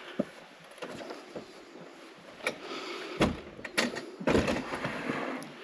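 A bothy door's latch clicking and rattling as it is worked and the door pushed open, with several sharp knocks and a heavier thump about three seconds in.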